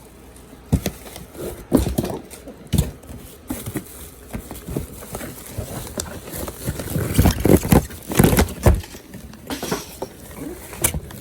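Hands unpacking a new fuel pump: irregular knocks, taps and rustling of packaging and parts being handled. The loudest cluster of knocks comes after about seven seconds.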